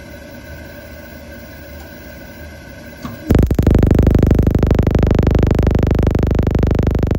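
A steady hum, then about three seconds in a Baxi Solo HE boiler's ignition starts sparking: loud, rapid ticking. The spark is tracking from the ignition lead instead of lighting the burner, the cause of the boiler's lockout on an ignition fault.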